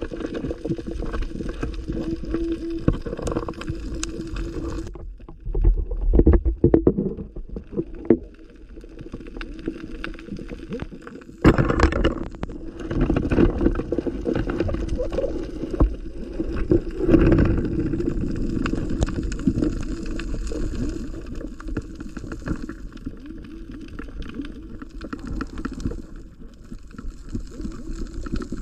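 Muffled underwater sound from a submerged camera: water moving and gurgling against the housing, with a steady low hum and many scattered sharp clicks and knocks. A sudden loud burst comes about twelve seconds in.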